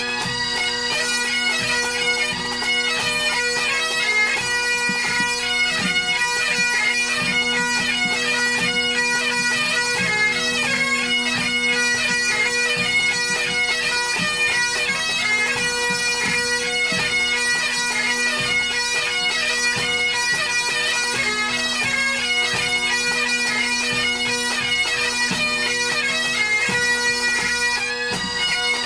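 Great Highland bagpipe playing a tune over its steady drones, with a tenor drum beating along underneath.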